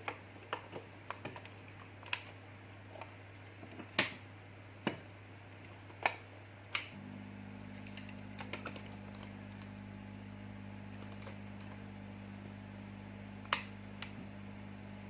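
Sharp clicks and taps of small tools being handled on a workbench, then about seven seconds in a hot-air rework station switches on and its fan runs with a steady hum; one more click comes near the end.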